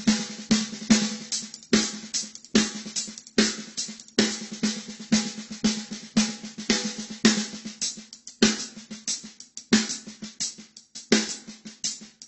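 Drum kit played in a steady groove built on single paradiddles (right-left-right-right, left-right-left-left), with snare and hi-hat strokes over the bass drum. Louder accented hits alternate with softer ghost strokes.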